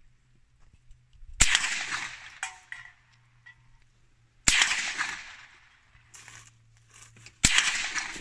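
Three rifle shots about three seconds apart, each a sharp crack that trails off over about a second.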